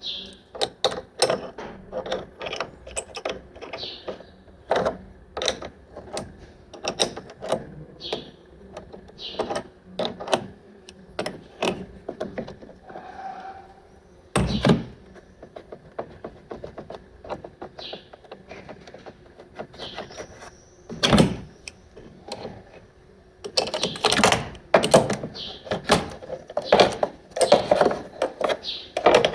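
Irregular clicks, knocks and clatter of objects being handled, with two loud thumps in the middle and a busy run of clatter near the end. Short high chirps, likely birds, sound between them.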